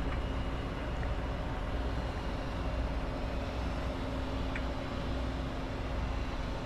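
Boat engine idling, a steady low hum with a faint constant whine.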